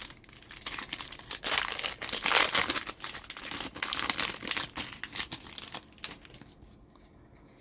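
Plastic wrapping of a football trading-card blaster box and its card packs crinkling and tearing as they are opened, a dense crackling that dies away about a second before the end.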